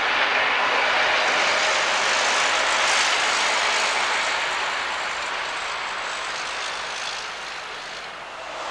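Boeing 777's jet engines running at taxi power as the airliner rolls past at close range: a steady jet rush and whine that is loudest in the first half and eases off from about four seconds in.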